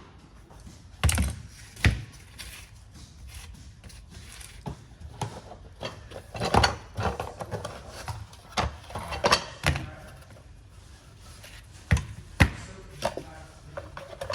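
Pliers and drum-brake parts clicking and knocking as the handbrake cable is worked off the old rear brake shoe: scattered short, sharp knocks, the loudest about a second in and again near the end.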